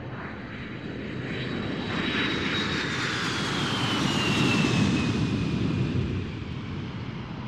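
A pass-by sound: a low rumble and rushing noise swell over a few seconds and then fade, while a high whine glides down in pitch through the middle, like a jet airplane passing overhead.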